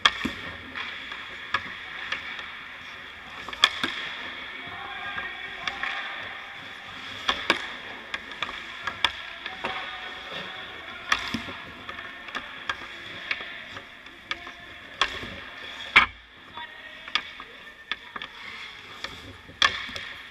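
Hockey practice on ice: a steady scrape of skate blades on the ice, broken every few seconds by sharp clacks of pucks shot off sticks and striking goalie pads, the boards or the net, the loudest about sixteen seconds in.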